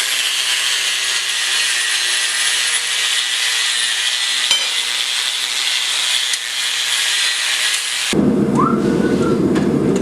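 Angle grinder with a worn flap disc grinding paint off a steel plate, running with a steady high whine. About eight seconds in, it gives way abruptly to a lower rumbling noise.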